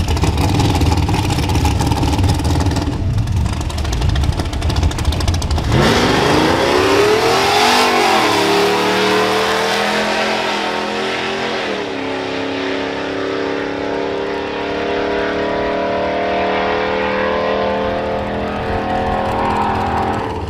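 A Ram 1500's Hemi V8 making a drag-strip launch. A low rumble gives way, about six seconds in, to a sharply rising engine note. Two quick drops in pitch mark the automatic transmission's upshifts, and the engine then pulls on steadily down the track.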